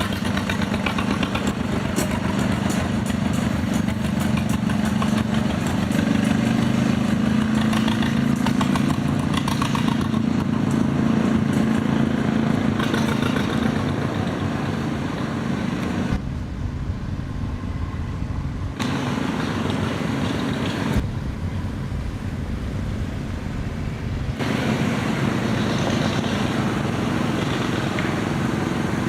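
An engine running steadily. Twice midway the higher sounds drop away for a few seconds and a low rumble takes over.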